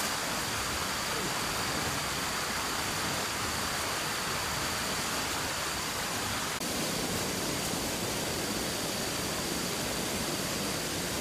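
Steady rushing hiss with a faint, high, steady whine over it, briefly dipping about six and a half seconds in.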